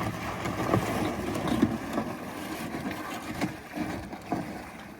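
Canoe being boarded and launched at the water's edge: water moving around the hull with scattered knocks.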